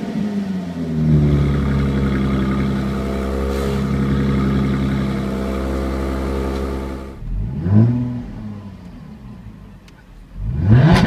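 Jaguar F-Type V6 S's supercharged 3.0-litre V6 exhaust: the engine note falls from a rev and settles to a steady fast idle. About seven seconds in it drops away, and two short throttle blips follow a few seconds apart, each a quick rise and fall in pitch.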